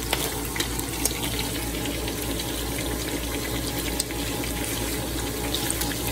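Pork pieces frying in hot oil with garlic and bay leaves, sizzling steadily with a few sharp clicks and pops in the first second and again about four seconds in. The vinegar marinade has cooked off, so the meat is now frying and browning in its own oil.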